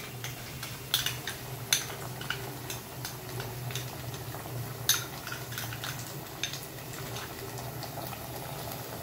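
Spoon stirring a sauce in a kadai, clinking and scraping against the pan several times, loudest about a second in, near two seconds and about five seconds in. Under it the sauce sizzles softly over a steady low hum.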